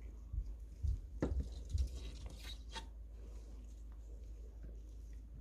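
Soft handling sounds as food is placed in a plastic container: a few light taps and rustles over the first three seconds, then quieter.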